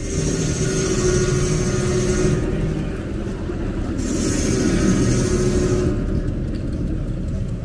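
An engine running steadily, with two hissing bursts of about two seconds each, one at the start and one from about four seconds in.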